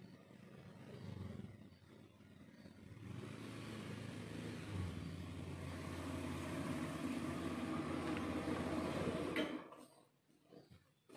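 An engine running steadily for several seconds, building up over the first few seconds and then cutting off abruptly near the end.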